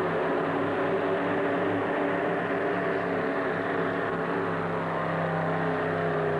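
Modified pulling tractor's engine running loud and steady at a constant pitch during a pull.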